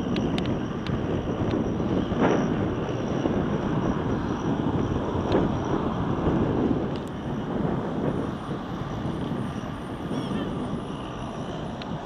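Fendt 415 Vario tractor's six-cylinder diesel engine running steadily under load, pulling a reversible plough through the soil.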